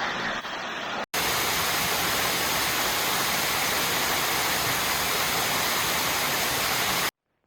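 Waterfall pouring into a river pool, a steady, dense rush of falling water. It drops out for an instant about a second in, returns louder and brighter, then cuts off abruptly near the end.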